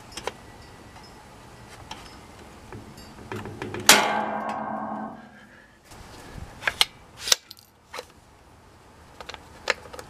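A Ramset powder-actuated nail gun fires once, a sharp bang about four seconds in, followed by about two seconds of dying metallic ringing. This second shot breaks the U-lock off. A few short metal clicks and clinks follow as the tool and lock are handled.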